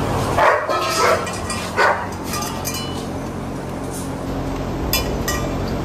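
A dog barking, three loud barks in the first two seconds, then a few sharp clicks near the end over a steady low hum.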